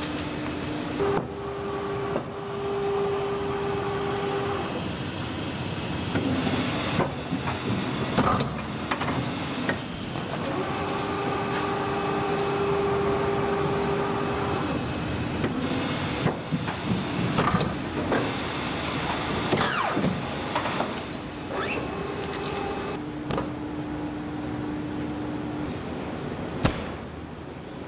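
Paper guillotine cutter working: a steady machine hum comes and goes in stretches of a few seconds, with several sharp clunks and the noise of paper stacks being handled.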